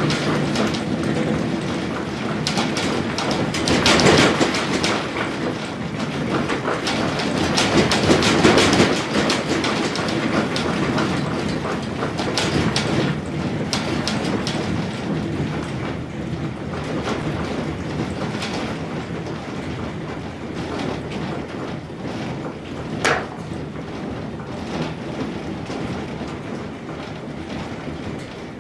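Continuous rumbling and rattling of earthquake shaking, with many small clatters and knocks. It is strongest in the first several seconds and gradually dies down, with one sharp knock about 23 seconds in.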